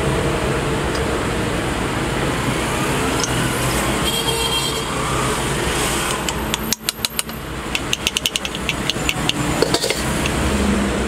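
Steady engine-like background hum with mechanical noise. In the second half come a series of sharp metal clicks and clinks, typical of steel impact-wrench parts being handled and fitted on a workbench.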